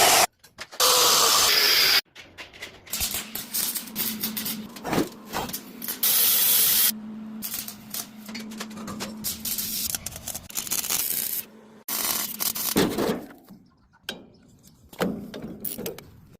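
Metalworking on a saw mount: short loud runs of a power tool of about a second each, between knocks, clanks and rubbing of metal parts being handled and fitted.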